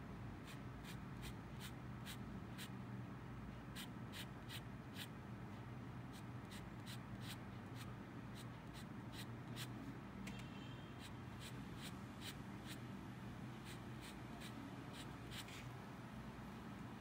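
Extra-fine steel nib of a Lamy Safari fountain pen scratching across Moleskine sketchbook paper in short, quick hatching strokes, two or three a second, in runs with brief pauses. A low steady hum lies underneath.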